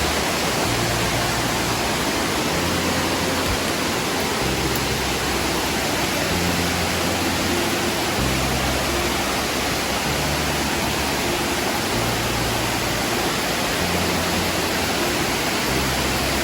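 Steady, unbroken rush of water from a waterfall.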